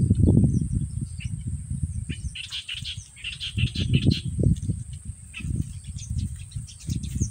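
Birds chirping in short clusters, busiest a few seconds in, over irregular low rumbling.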